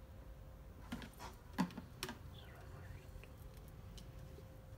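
A few sharp clicks and knocks of a hard plastic washer fluid reservoir being handled on a workbench, clustered between about one and two seconds in, with fainter taps later.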